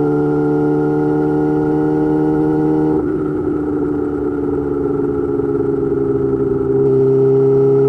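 Yamaha YZF-R6 599 cc inline-four running through an M4 GP slip-on exhaust at a steady cruising speed. About three seconds in it switches abruptly to an uneven, rougher off-throttle sound. It returns to the same steady pitch near the end.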